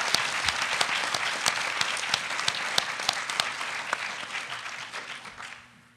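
Audience applauding with many sharp hand claps, dying away near the end.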